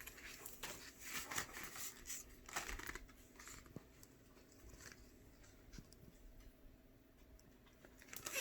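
Faint rustling and crinkling of paper, a picture book's pages being handled, mostly in the first few seconds, then quieter.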